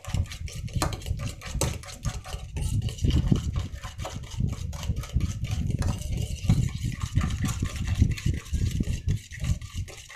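Metal fork whisking a thin Milo, sugar and water mixture in a ceramic bowl: rapid clicks of the fork against the bowl over a steady low rumble.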